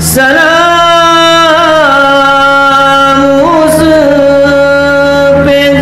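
A man chanting an elegy (soz) solo into a microphone, holding long notes that step down in pitch about two seconds in and rise again about three and a half seconds in, with a short breath near the end.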